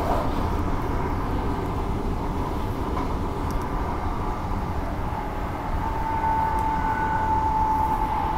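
Walkers Limited electric multiple unit running at speed, heard from inside the passenger car: a steady rumble of wheels on track. A steady high whine joins in about five and a half seconds in.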